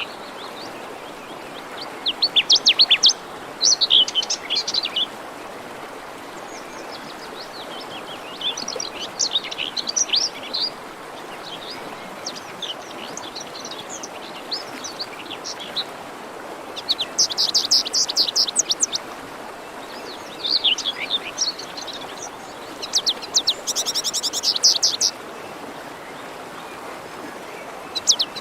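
Songbirds singing over the steady rush of a forest stream: chirping and quick trilled song phrases come every few seconds, the loudest trills about two-thirds of the way through, with the stream's even flowing noise underneath throughout.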